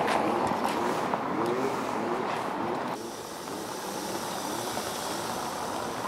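A Skoda Kodiaq SUV driving slowly over cobblestones, a steady rush of tyre and engine noise, beginning about three seconds in after a stretch of street noise with a few light clicks.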